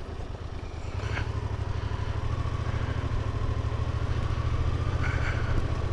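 Motorcycle engine running as the bike rides along, heard from the bike itself, growing gradually louder after about a second.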